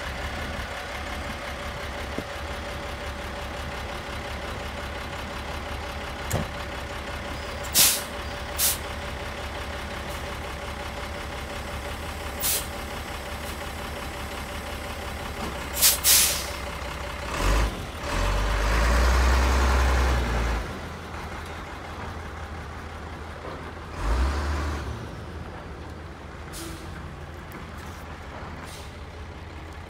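Medium-duty truck carrying a tree spade, its diesel engine running steadily with a held whine, broken by several sharp clanks. About eighteen seconds in comes a louder stretch of a few seconds as the truck pulls away, with another burst near twenty-four seconds, after which the engine sounds farther off.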